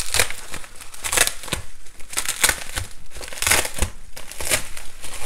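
Plastic bubble wrap crinkling and rustling in irregular bursts as hands smooth and pull at it to unwrap a spiral notebook.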